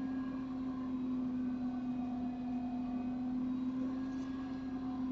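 Steady low hum, one strong unchanging droning tone with fainter higher tones above it.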